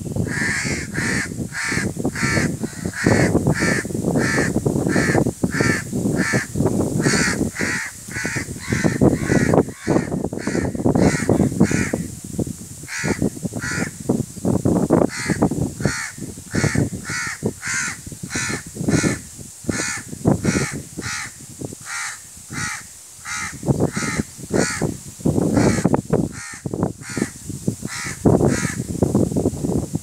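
Crows cawing over and over, about two calls a second, over an uneven low rushing noise.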